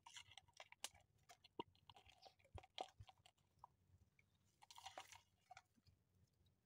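Faint scattered clicks, knocks and rustles of a mesh fish trap on its pole being handled and opened, with a longer rustle about five seconds in.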